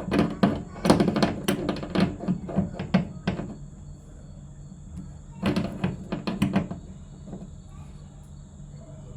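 Rapid clicks and knocks of hand-tool work on an air conditioner's copper refrigerant line fitting, likely a spanner tightening the flare nut, in two bursts with a steady low hum underneath.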